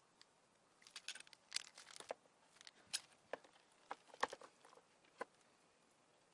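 Faint, scattered clicks and taps of plastic and metal as pressure-washer quick-connect nozzle tips are handled and pushed into the nozzle holder on the machine's side, most of them between about one and five seconds in.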